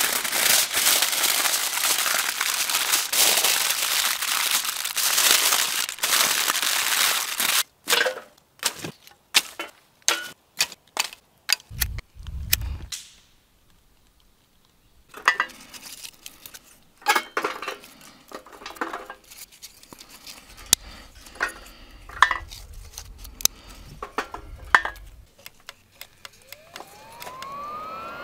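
Aluminium foil crinkling loudly as it is folded and crushed tight around a fish. Then scattered sharp clicks and crackles as bark tinder is lit in a BioLite camp stove. Near the end the stove's fan starts with a rising whine that levels into a steady tone.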